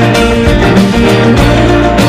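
Background music with plucked guitar and a steady beat.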